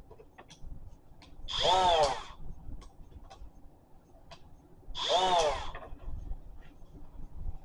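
Ryobi 18V brushless die grinder run briefly twice with no load, each burst a quick spin-up and spin-down of under a second. Light handling clicks come between the bursts.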